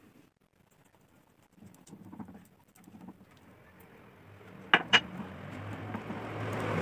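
Cold cream poured into just-made hot caramel in a pan, hissing and bubbling up, growing steadily louder over the last three seconds. Before that, only faint scrapes of the silicone spatula, and two sharp clicks just before the five-second mark.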